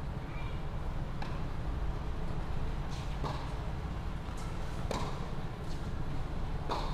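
Tennis rally on a hard court: tennis balls popping off rackets and bouncing, a sharp pop every second or so, over a steady low rumble.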